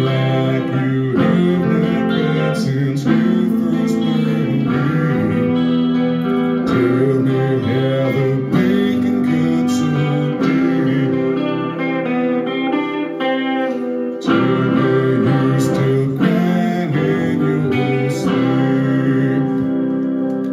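Live song on an amplified semi-hollow electric guitar, strummed steadily, with a man singing along.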